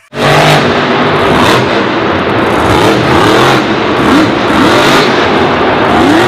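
Loud engine revving, its pitch rising and falling several times. It cuts in abruptly, the way an edited-in vehicle sound effect does.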